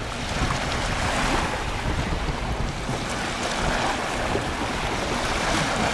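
Steady wind buffeting the microphone, mixed with small waves lapping on a lakeshore.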